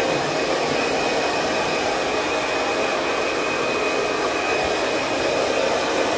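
Handheld hair dryer blowing steadily at a constant pitch, with a faint high whine from its motor.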